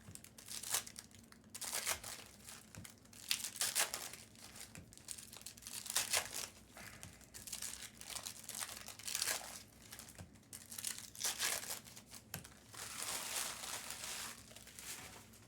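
Foil trading-card pack wrappers being crinkled and torn open, with the cards handled in between. It comes as short, irregular rustling bursts, about one or two a second.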